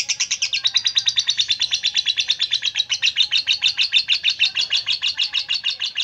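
Lovebird singing a long, unbroken canary-style trill, a rapid run of high chirps at about a dozen a second: song copied from a canary, which bird keepers call an isian kenari.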